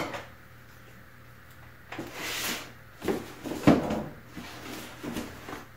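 A cardboard box being handled on a wooden table: a scrape about two seconds in as it is slid and turned, then a few knocks as it is set back down, with softer rustling after.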